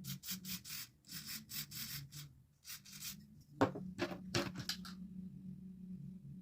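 Quick scratchy rubbing strokes against the wig's lace and hair as it is worked back into place: a fast run of strokes, a short pause, then a few more. A low steady hum sits underneath.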